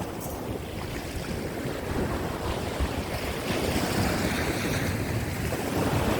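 Rough sea surf breaking and washing over coastal rocks, with strong gusty wind buffeting the microphone. The wash of the surf swells louder about halfway through.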